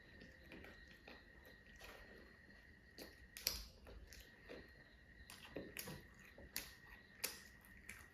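Person eating fried chicken nuggets: quiet chewing with irregular sharp crunches and mouth clicks.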